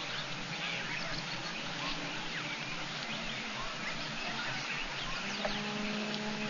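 Many short, high bird chirps and whistles overlapping over a steady background hiss. A low steady hum joins about five seconds in.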